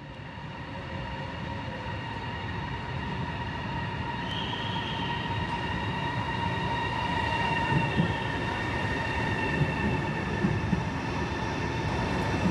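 Chinese high-speed electric train pulling in alongside the platform: a low rumble with a steady high whine, growing louder as it comes in, with a few knocks in the second half.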